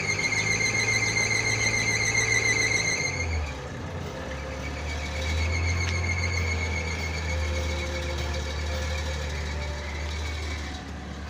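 Suzuki Mehran's three-cylinder carbureted engine running, with a high steady squeal over it. The squeal breaks off about three and a half seconds in and comes back a second later, and the engine's pitch drops slightly at the break.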